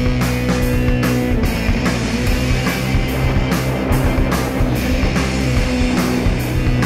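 Instrumental passage of a rock song: a full band with electric guitar over a steady drum-kit beat.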